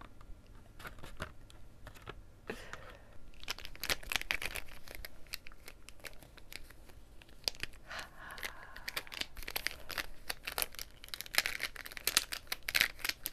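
A bundle of plastic felt-tip markers handled close to the microphone: irregular clicking and rattling as the pens knock together, with crinkly rustling, busiest about four seconds in and again near the end.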